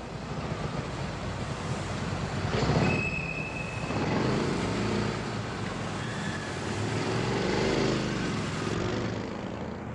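A van driving through an underground parking garage and pulling up, its engine and tyres running steadily. A brief high squeal comes about three seconds in.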